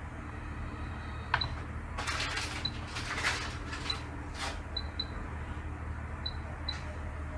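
Rotary knob of a UNI-T UTG962E function generator being turned, with a sharp click, a few short rubbing sounds and seven short high electronic beeps scattered through, over a faint steady hum.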